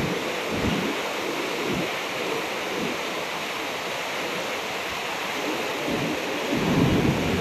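A river in flash flood after heavy rain: a steady, loud roar of muddy floodwater rushing and churning. Wind buffets the microphone now and then, most strongly near the end.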